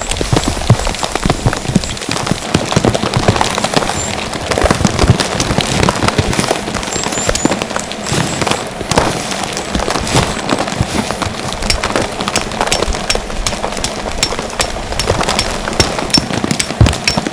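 Heavy rain drumming on tent fabric: a dense, irregular patter of drops, with sharper, evenly spaced ticks joining in about halfway through.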